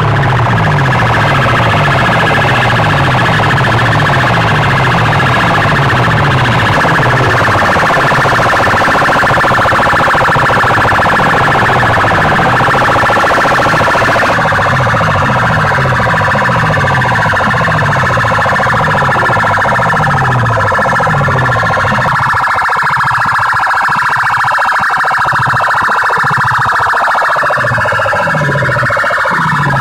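Stacks of horn loudspeakers blasting a loud electronic siren-like sound effect: a fast, evenly repeating bass sweep under steady high-pitched tones. The bass part fades out about two-thirds of the way through, leaving the high tones.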